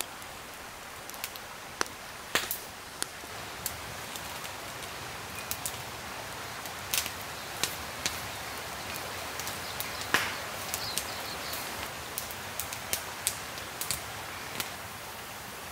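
Wood campfire crackling, with irregular sharp snaps and pops over a steady hiss; the loudest pop comes about ten seconds in.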